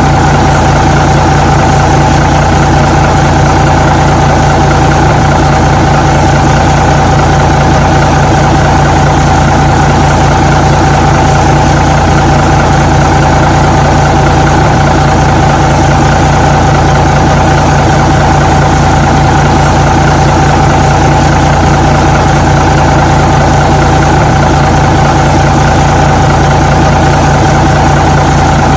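Truck engine idling at a steady, unchanging speed, a constant low hum with a steady higher tone above it.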